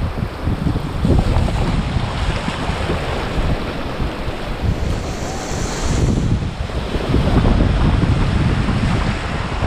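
Wind buffeting the microphone in a heavy low rumble, over the rush of small surf breaking and washing around a kayak, with a brighter hissing wash of water about five seconds in.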